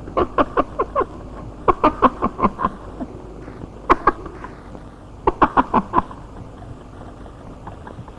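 A man laughing in four bouts of short, rapid pulses, about five a second, the pitch dropping slightly within each bout.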